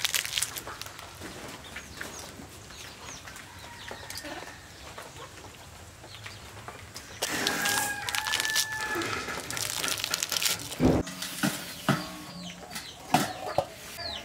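Chickens clucking, with a rooster crowing once about seven and a half seconds in, and a few sharp knocks later on.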